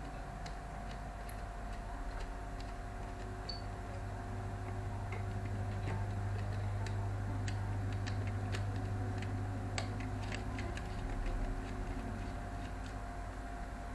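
Scattered, irregular light clicks and ticks, more of them in the middle, over a steady low hum.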